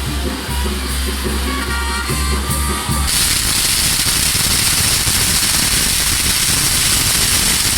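Music with a heavy bass, then about three seconds in a loud, dense crackling and hissing of castillo fireworks starts suddenly and runs on over the music.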